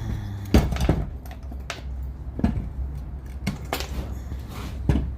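Metal parts of a disassembled airless paint sprayer's clutch and gear housing clinking and knocking as they are handled, in irregular sharp knocks about a second apart, over a steady low hum.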